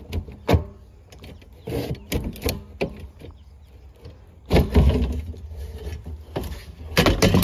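Black plastic lid of a blue plastic drum being worked loose and pulled off: scattered clicks and knocks of plastic, then a louder scraping rattle about four and a half seconds in as the lid comes away, and more handling knocks near the end.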